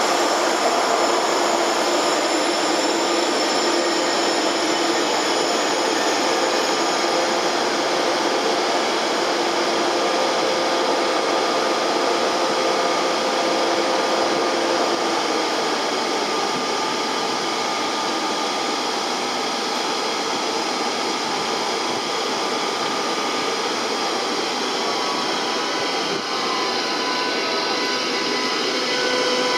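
DB class 101 electric locomotive's cooling blowers running, a loud steady rush of fan noise. About 25 seconds in, the locomotive's traction converters add a whine whose pitch dips and rises again as it starts to pull its train away.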